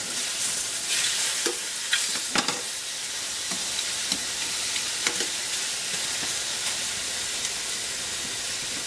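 Strips of squid sizzling in olive oil in a hot skillet, a steady frying hiss. Several short clicks of metal tongs against the pan come in the first half as the pieces are turned.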